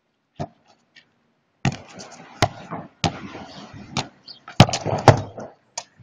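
Football being kicked and bouncing on a concrete court: a string of sharp thuds, the loudest about two-thirds of the way in, with rough rustling noise between them.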